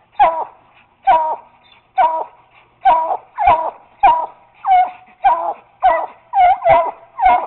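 Treeing Walker coonhound pup barking at a treed raccoon: a steady string of short, pitched treeing barks, about one a second at first and quickening to nearly two a second near the end.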